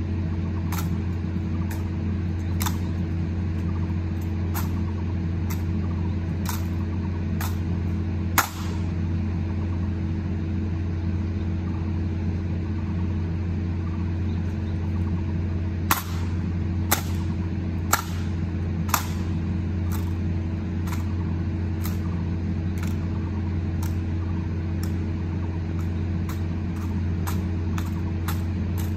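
A steady low mechanical hum runs throughout, with crisp clicks and slaps from an honor guard's rifle drill on top: hands striking M1 Garand rifles and rifle butts meeting the pavement. There are about one a second at first, a single sharp strike about eight seconds in, four louder strikes a second apart just past the middle, and fainter ones toward the end.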